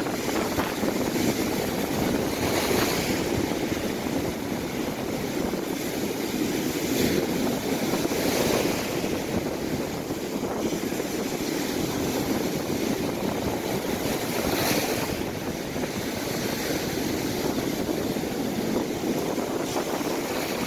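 Sea surf breaking on a sandy shore: a continuous foamy wash of waves, with louder surges every few seconds as breakers crash in.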